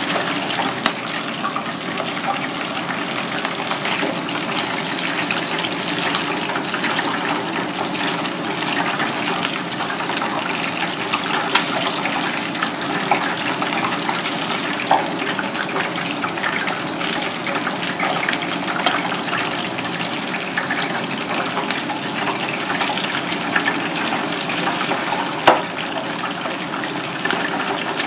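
Battered fish fillet deep-frying in hot oil: the oil bubbles and crackles steadily with a dense spatter of tiny pops. There is one sharper click near the end.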